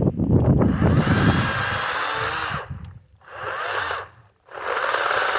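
Kobalt 40V Max battery-powered electric chainsaw running at speed, cutting cedar limbs. It runs in three spells, cutting out twice for about half a second as the trigger is let off between cuts. Low rough rustling comes first, for about a second and a half.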